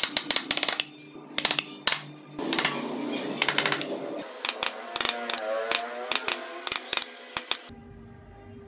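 Steel carving chisel being tapped into wood, a quick irregular run of sharp clicking strikes, a few a second. They stop about a second before the end, leaving a faint low hum.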